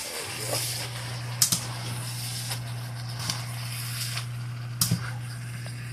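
Rice noodles, chicken and sauce sizzling and steaming in a hot pan, over a steady low hum, with sharp clicks of metal tongs against the pan twice, about a second and a half in and near the end.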